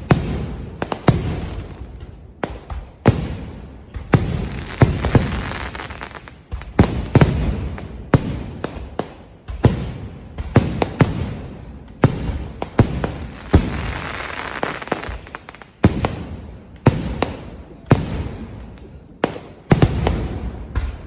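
Fireworks display: a barrage of loud bangs at irregular spacing, several a second at times, with stretches of crackling hiss between them.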